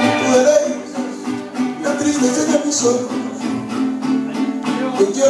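Live mariachi-style band playing an instrumental passage: guitars and a vihuela strumming a steady rhythm under sustained melody notes.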